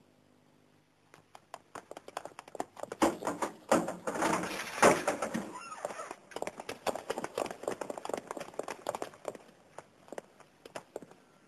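A rapid, irregular run of knocks and taps, loudest about four to five seconds in and thinning out near the end.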